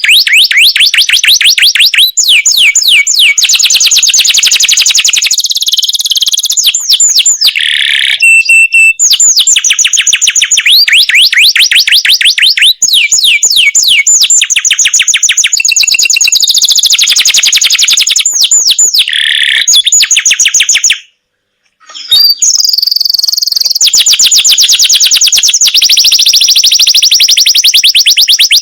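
Male canary singing long rolling trills: fast runs of rapidly repeated high notes that switch to a new phrase every few seconds. There is one brief pause about three-quarters of the way through.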